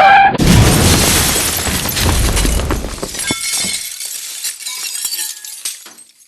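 Crash sound effect: a sudden loud impact with a low rumble and shattering glass, followed by scattered clinks of falling debris that fade away over several seconds.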